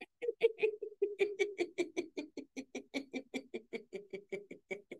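A woman laughing on one long exhalation as a laughter-yoga voice exercise. It is a steady run of short, even laughs, about five a second, held on one pitch, and it stops just before the end.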